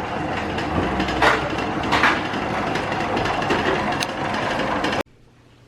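Steady rumble and rattle of a moving vehicle, with two louder clacks a little over a second and about two seconds in; it cuts off abruptly near the end.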